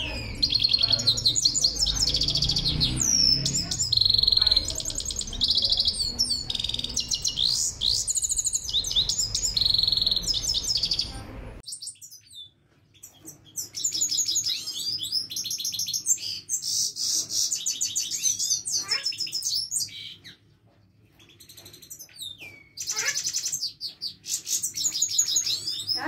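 Caged goldfinches singing a long, rapid twittering song of quick high trills, chirps and sliding notes. About twelve seconds in, a low background hum stops abruptly and the singing carries on.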